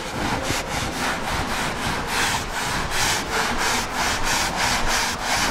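Chalk blackboard being wiped with a handheld duster, quick back-and-forth scrubbing strokes erasing the writing.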